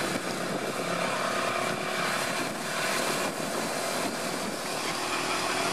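Off-road vehicle engines running steadily with a continuous drone during a tow-strap recovery of a UAZ stuck in mud.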